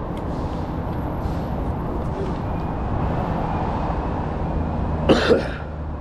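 Steady low rumble of street traffic. About five seconds in, one short, sharp, loud burst rises in pitch.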